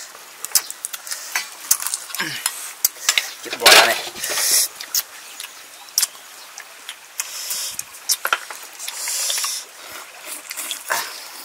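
Small clicks and taps of a cooked river snail shell being handled and picked at with a stem, with short slurping sucks as the snail meat is eaten from the shell.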